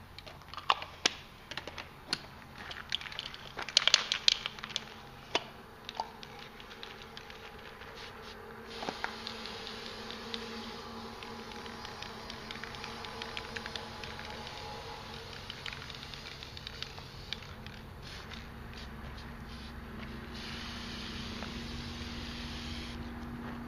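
Sharp irregular clicks and knocks for the first several seconds, then an aerosol spray-paint can hissing steadily as paint is sprayed, growing stronger near the end.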